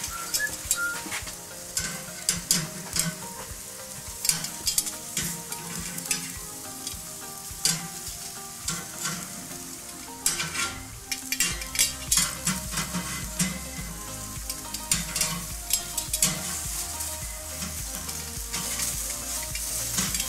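Veal bratwurst burger patties and onion slices sizzling and crackling on the grate over hot charcoal in a kamado grill. Metal tongs click against the grate now and then as the patties are moved.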